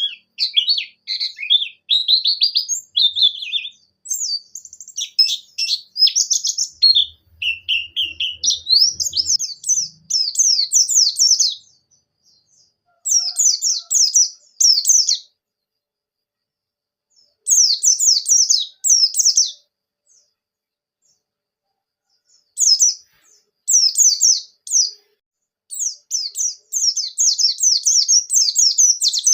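A white-eye (pleci) singing a fast, high twittering song of rapid trills. It sings almost without pause at first, then after about twelve seconds in bursts of a second or two separated by short silences.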